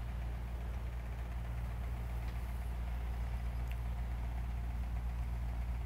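Steady low electrical hum with faint hiss. There is a faint tick about two-thirds of the way through.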